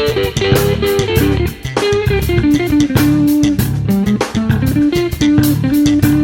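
Background music: electric guitar melody over bass guitar and a steady drum beat.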